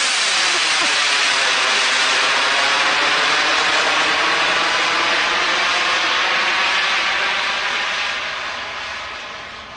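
Radio-controlled model jet's engine running loud as the jet climbs and flies past, a steady rushing noise with a slow swirling, phasing quality that fades away over the last couple of seconds.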